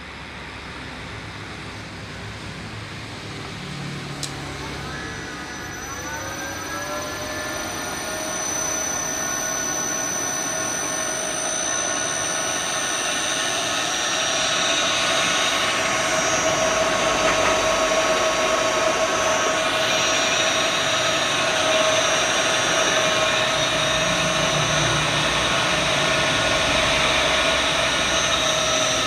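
Electric motor driven by an LS iG5A inverter being tested after a repair: it spins up, its whine gliding up in pitch from about five seconds in, then settles into a steady running whine. The sound grows louder as it runs, with a thin high steady tone above it.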